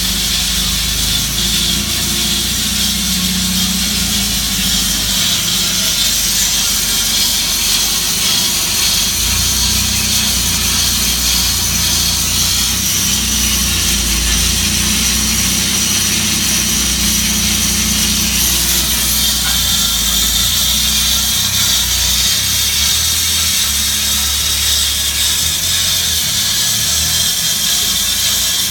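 Cosen C-320NC automatic metal-cutting band saw running and sawing steadily: a continuous high hiss from the blade over a low motor hum.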